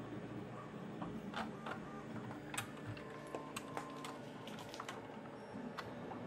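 Irregular light clicks and taps of tweezers and small parts as a 3.5 mm jack socket is worked through a hole in the dispenser's panel: about a dozen sharp clicks, most of them in the middle seconds.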